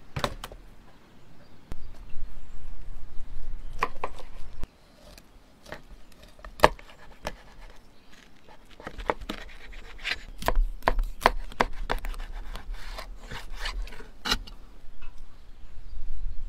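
A large knife chopping a whole fish into steaks on a wooden cutting board. The blade knocks sharply on the board in an irregular series, coming faster in the second half.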